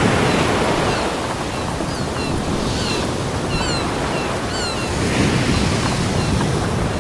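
Ocean surf washing onto a beach, a steady rush of water that swells again about five seconds in. Short high chirps come and go through the middle.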